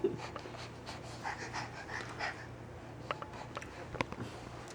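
Faint breathing and mouth noises of a toddler eating a banana, with a few soft clicks near the end.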